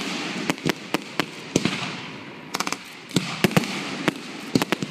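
Fireworks finale: mortar-fired shells going off in quick, irregular succession, a dozen or more sharp bangs over a continuous hiss.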